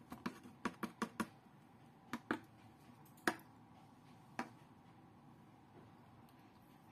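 Sharp taps and knocks around a stainless steel mixing bowl as flour is emptied into it: a quick run of about six in the first second and a half, then a pair and two single knocks spread over the next three seconds.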